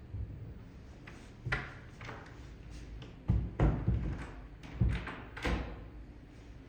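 A handful of dull thuds and knocks, about six spread over a few seconds, with a quick cluster of three near the middle.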